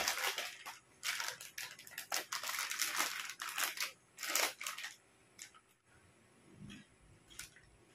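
Plastic snack bag crinkling and rustling in repeated bursts as a hand handles it and reaches inside. The sound stops after about five seconds, leaving only a few faint short sounds.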